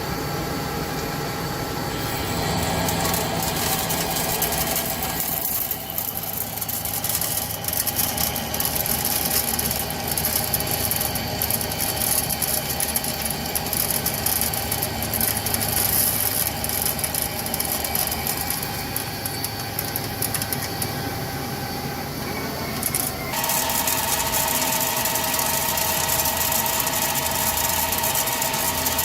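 CNC lathe running while turning a spur pinion shaft: steady whines from the spindle and drives throughout. A hissing, crackling cutting noise starts about six seconds in and runs until about twenty-three seconds, where the tone shifts.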